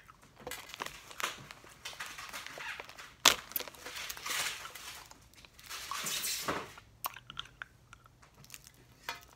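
Close-up crunching and crinkling from hard candy being chewed and plastic candy wrappers being handled. The noise comes in irregular rustles, with a sharp click about three seconds in and a run of small ticks near the end.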